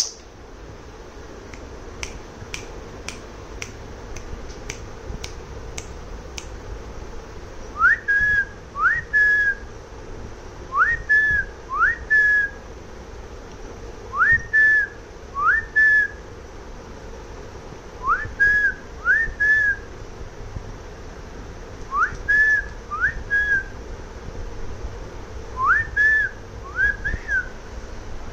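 A person whistling short two-note calls: each note slides quickly up and then holds, and the pairs repeat every three to four seconds. Before the whistling starts, a quick run of sharp clicks comes about two a second.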